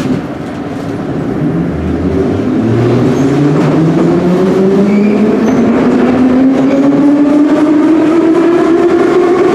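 Ezh3/Em-508T metro train accelerating away from a station: its traction motors and gears whine in a stack of tones rising steadily in pitch, growing louder over the first few seconds and then holding, with rail noise underneath.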